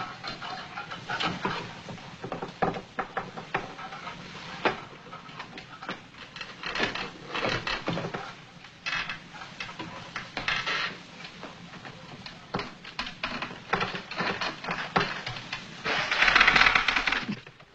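Stacked wooden chairs creaking and knocking under a climber's weight, an irregular run of knocks, clicks and clatters, with a louder stretch of rustling noise near the end.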